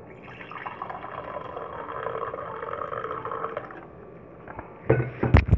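Coffee being poured in a steady stream into a mug, filling it for about three and a half seconds, followed about five seconds in by a few sharp knocks.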